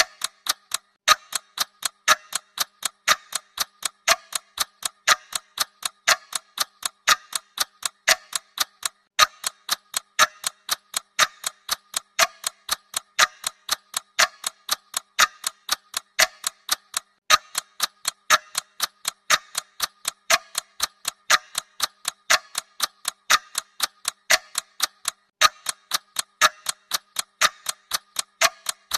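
Clock ticking, a steady, even run of sharp ticks several times a second.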